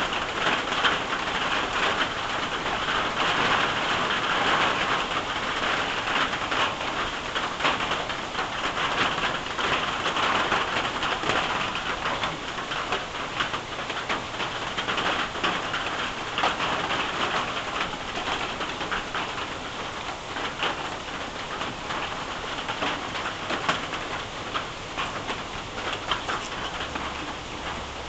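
Steady heavy rain falling on a tin roof and on leafy trees, a continuous hiss dotted with countless small ticks of individual drops.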